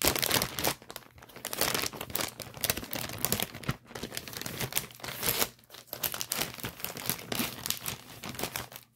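Thin clear plastic packaging bag crinkling and rustling irregularly as it is opened and handled, with a few brief pauses.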